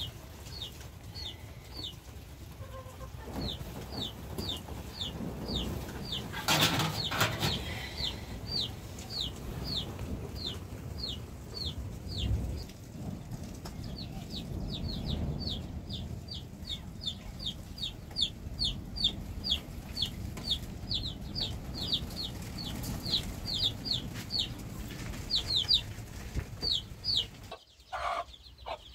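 Chicks peeping over and over, short high falling notes about two a second, over a steady low rumble. There is a brief clatter about seven seconds in.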